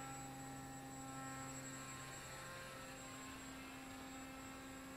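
Motor of a radio-controlled paramotor running at minimum throttle: a faint, steady hum with a few overtones that waver slightly.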